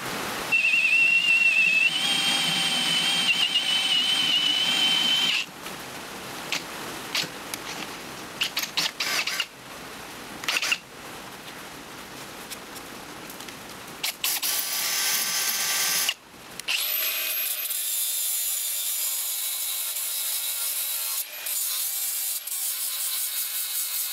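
A power drill bores a plug-weld hole through a steel tube axle, with a steady high squeal from the bit cutting metal for about five seconds that steps up slightly in pitch partway through. A quieter stretch of handling clicks follows. About two-thirds of the way in, an angle grinder starts chamfering the axle end and runs steadily through the rest.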